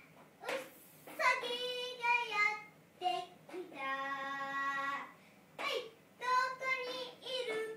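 A little girl of about four and a half singing in short phrases, with one long held note about four seconds in.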